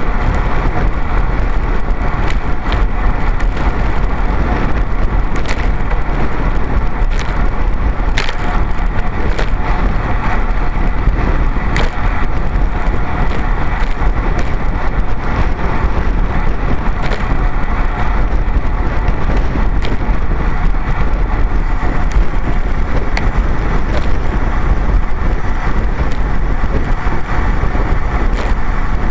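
Wind buffeting the microphone of a camera on a moving road bike, with tyre rumble on rough asphalt, a steady loud rushing noise with occasional sharp clicks from bumps in the road.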